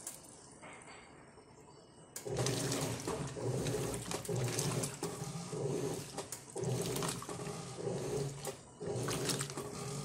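Electrolux LM08 top-load washing machine agitating a load of clothes in soapy water. About two seconds in it starts swishing back and forth in an even rhythm, a little under a second per stroke, with the motor and water sloshing at each stroke.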